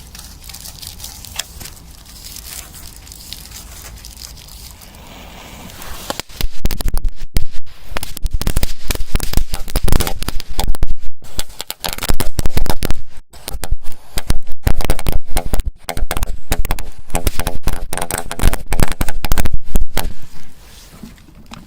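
A long string of firecrackers set off inside a vacuum cleaner hose: low crackling for about six seconds, then a rapid, unbroken run of loud bangs for about fourteen seconds that stops shortly before the end.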